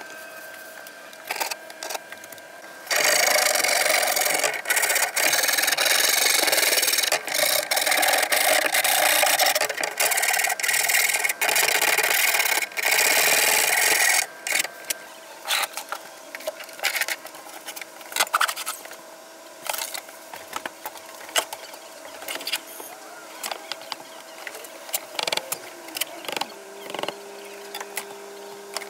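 Hand file rasping back and forth along the sawn edge of a cutout in a cypress board, a continuous run of long strokes for about eleven seconds. It stops abruptly and gives way to quieter scattered taps and clicks of handling.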